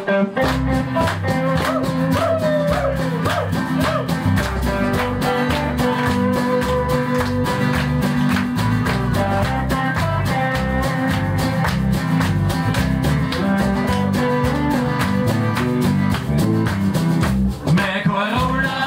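Live guitar band playing an instrumental passage: several acoustic guitars and an electric guitar strum a fast, steady rhythm over a moving bass line.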